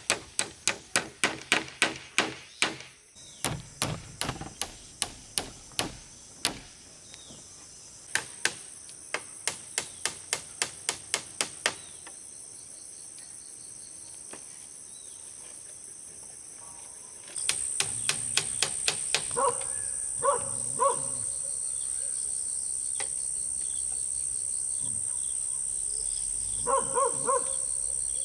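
Runs of quick hammer blows, about four a second, with short pauses between runs, over a steady high insect chorus that grows louder about two-thirds of the way through.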